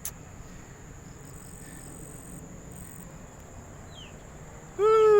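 Steady high-pitched trill of crickets over a low outdoor hiss. Near the end, a single loud, drawn-out call that falls in pitch as it ends.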